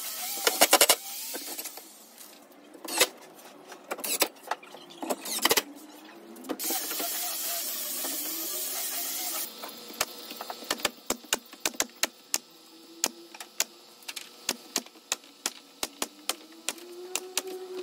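Pneumatic nail gun firing a quick series of nails into a melamine wall panel, sharp clicks at about three a second from about ten seconds in. Earlier there are a few knocks from handling the panel and a few seconds of steady hiss.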